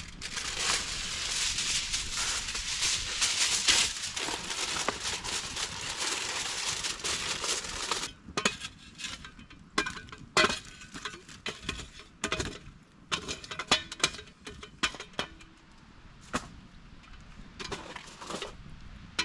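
Aluminium foil pan being crumpled and rolled up, a dense crinkling for about eight seconds, then scattered sharp crinkles and clicks as it is handled.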